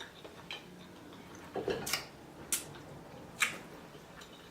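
Mouth sounds of eating seafood: about four short, sharp wet clicks and lip smacks, spaced roughly a second apart.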